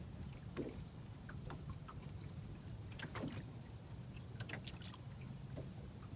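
Quiet ambience aboard a fishing boat: a steady low hum under faint, scattered light ticks.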